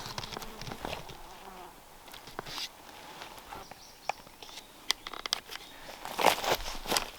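An insect buzzing, with scattered light knocks and clicks and a couple of short scraping bursts near the end.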